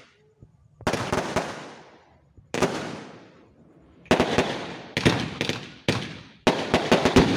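Fireworks going off: about five bursts of rapid crackling bangs, each fading away over a second or so, coming closer together and louder towards the end.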